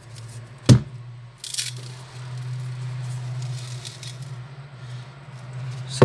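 Refrigerator compressor humming steadily while the fridge cools. A sharp click just under a second in and a short crackle soon after come from a paper cup of ice being handled.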